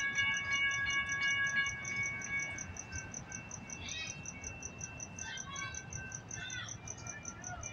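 Railroad crossing warning bell ringing steadily, about four strokes a second, while the crossing gate arm lowers. A steady whine from the gate mechanism fades out about two seconds in. Birds chirp a few times near the end.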